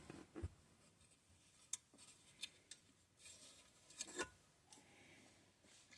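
Faint, scattered light clicks and taps of small metal engine parts being handled, about half a dozen in near silence.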